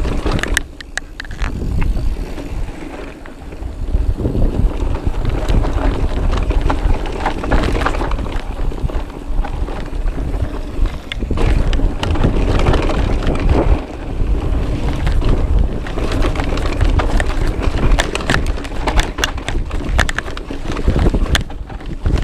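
Mountain bike rolling fast down a dirt bike-park trail: tyre noise and rumble over rough ground, with the frame, chain and suspension rattling and clattering over bumps, and wind rushing over the microphone. The noise eases briefly about two seconds in and again near the middle.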